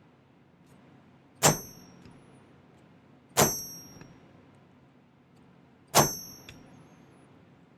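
Hammer striking a steel texture stamp on 18-gauge sterling silver sheet, stamping a texture: three separate sharp blows, each with a brief high metallic ring.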